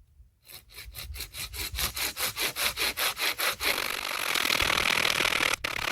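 Coghlan's pocket chainsaw, a length of chainsaw chain with strap handles, being pulled back and forth through a small log, the chain's teeth rasping on the wood. It starts as quick, even strokes and from about halfway in becomes a continuous rasp, with a brief break near the end.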